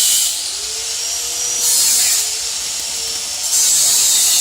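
Welding hiss coming in short bursts, starting and stopping three times as the welder works in stops and starts.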